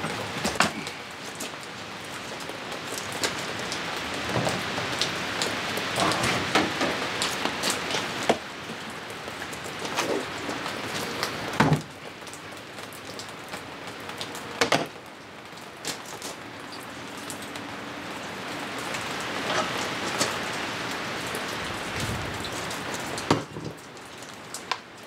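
Steady rain falling on wet ground and surfaces, with a few sharp knocks, the loudest about twelve seconds in.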